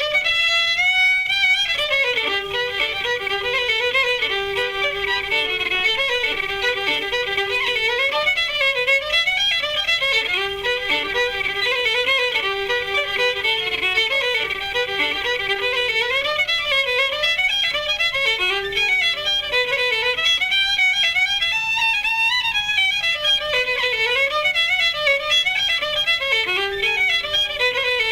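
Fiddle playing a quick, ornamented Irish traditional tune, the melody rising and falling in fast runs of notes.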